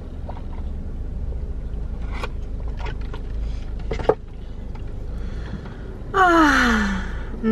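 A woman's loud, breathy exclamation, a drawn-out gasp-like 'ahh' falling in pitch, about six seconds in. Before it, a low steady hum and a few soft clicks.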